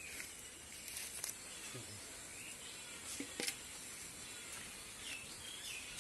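Quiet rural outdoor ambience: a steady high hiss, a few short chirping bird calls near the start and near the end, and a few sharp clicks and soft rustles of hands working through weeds and soil.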